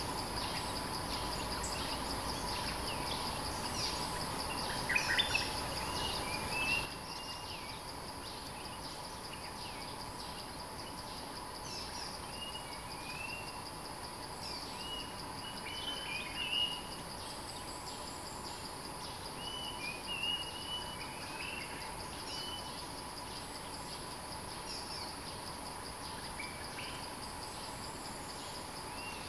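Stripe-throated bulbuls calling: short chirping phrases, repeated every few seconds, over a steady high insect drone.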